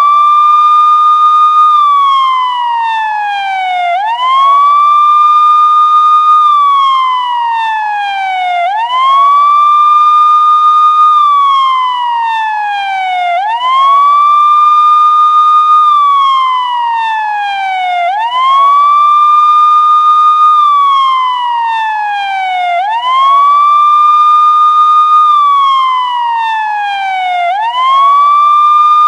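Police siren in a slow wail: each cycle rises quickly, holds high for a moment, then glides slowly down, repeating about every four and a half seconds.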